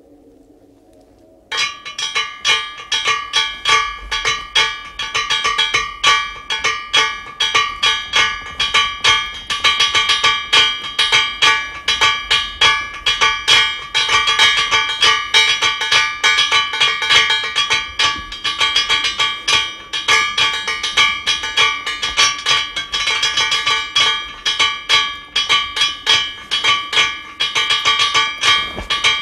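Struck metal ringing like bells: rapid, irregular clanging that starts suddenly about a second and a half in and keeps going, each strike leaving the same few ringing pitches.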